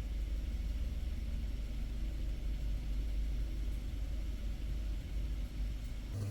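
Low steady rumble of a car idling inside a mechanical parking garage's car elevator, heard from within the cabin.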